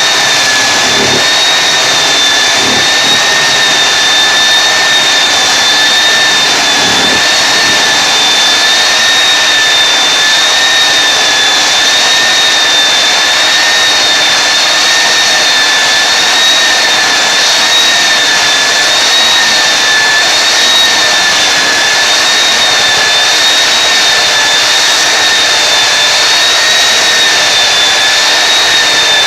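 Belt floor sander running steadily under load, a high whine over a loud hiss that wavers slightly in pitch.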